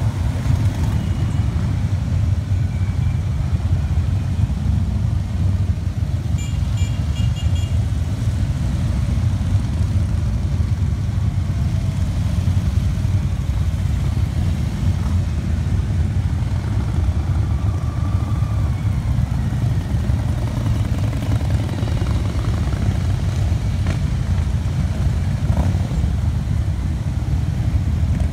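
A long column of motorcycles, mostly Harley-Davidson V-twins, riding past slowly in a parade, their engines blending into one continuous low, steady drone.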